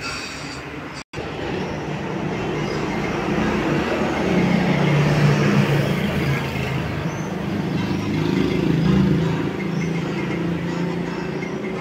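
Street traffic noise with a car engine's low hum, swelling in the middle and easing off. The audio drops out completely for a split second about a second in.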